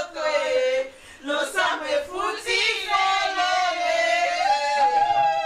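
Voices singing a melody, with one note held steadily for about two seconds near the end.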